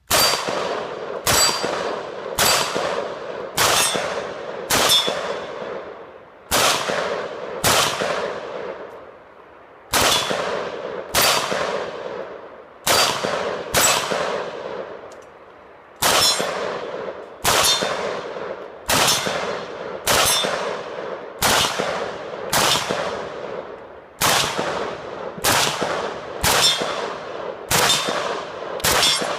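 Mini Draco AK pistol in 7.62x39 fired semi-automatically, a steady string of about twenty-three single shots, roughly one a second with a couple of slightly longer pauses. Each shot is a sharp crack with a long ringing echo that fades before the next.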